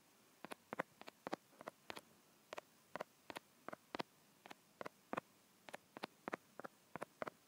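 Typing on an iPhone's on-screen keyboard: a faint, irregular string of short, sharp key clicks, about three a second.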